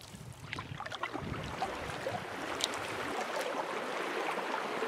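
Canoe paddle strokes dipping and pulling through calm water, with water washing past the hull and wind rumbling on the microphone. About three seconds in, the rumble stops abruptly and small waves lap gently in rocky shallows.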